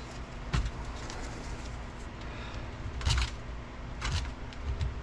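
Small steel transfer-case parts, the detent bolts just removed from the shift rails, being handled with three short metallic clicks or knocks over a low background rumble. The loudest click comes about three seconds in.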